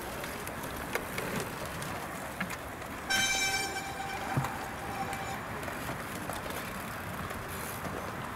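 A horn sounds once, about three seconds in: one steady note that dies away within about two seconds, over steady outdoor background noise.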